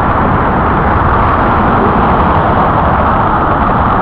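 Steady, loud motor-vehicle engine and traffic noise, an even unbroken hum of engines and road noise with no distinct events.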